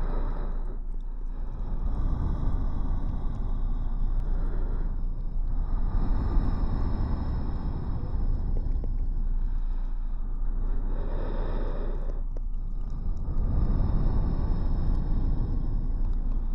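Layered heavy breathing close to the microphone: several long, overlapping breaths, each swelling and fading over a few seconds, over a steady low hum.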